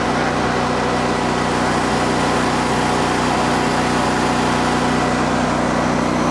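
Briggs and Stratton 15 kW air-cooled natural-gas standby generator running steadily on manual override, with an even engine hum.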